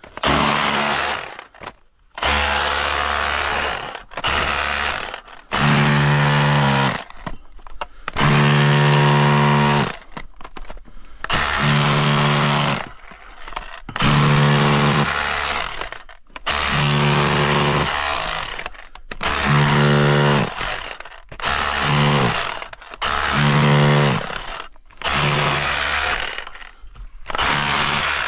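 Power drill run again and again in short bursts of one to two seconds, its motor whine starting and stopping about a dozen times.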